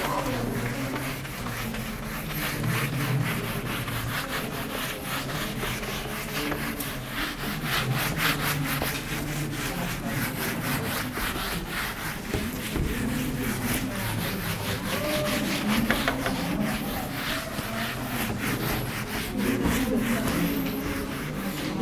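Whiteboard eraser rubbed rapidly back and forth across a whiteboard, a long run of scrubbing strokes wiping the board clean.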